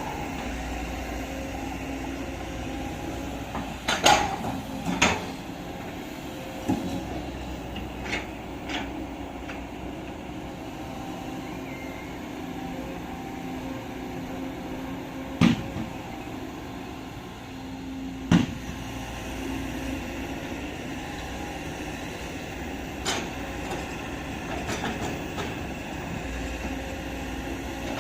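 Hydraulic excavator's diesel engine running steadily under work, with a handful of sharp knocks from the machine scattered through, the loudest about four, five, fifteen and eighteen seconds in.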